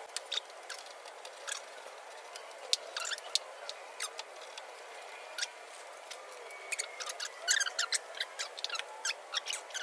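Scattered sharp clicks and small squeaks from hands working the plastic brake master cylinder reservoir of a Holden VK Commodore loose to pull it off, with quick runs of clicks near the end.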